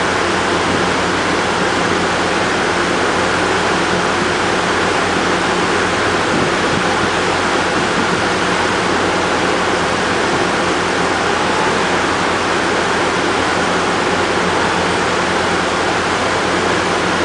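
EMD GP40WH-2 diesel locomotive running steadily while its train stands still: a loud, even rumble and hiss that does not change.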